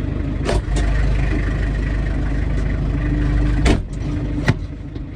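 Farm tractor's engine running steadily with a low drone, broken by a few sharp metallic clanks. The loudest clank comes just before 4 s, after which the engine sounds a little quieter.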